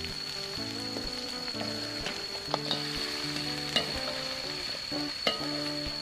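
Small birds frying and sizzling in oil in a steel wok, stirred with a metal spatula that clicks against the pan three times. A tune of held notes plays underneath.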